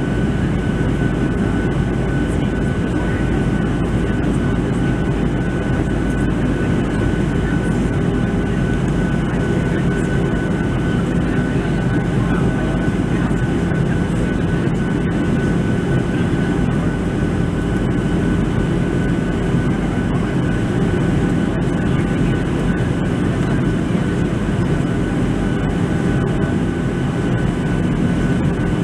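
Steady cabin noise of a Boeing 737-700 in flight, heard from a window seat over the wing: an even rush of engine and airflow noise with a constant low hum and a faint high whine from the CFM56-7B turbofans.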